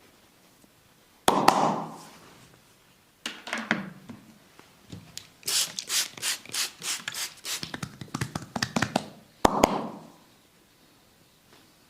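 Hand strikes of a percussive massage on the body. A sharp slap about a second in and another a couple of seconds later, then a quick run of strikes at about four a second, ending with a sharp double smack near the end.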